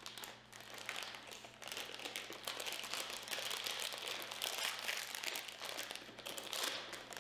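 Plastic jelly bean bag crinkling in the hands as it is opened and handled: an irregular run of fine, quiet crackles.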